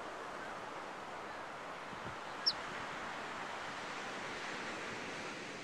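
Steady wash of ocean surf, with a single brief high chirp about two and a half seconds in.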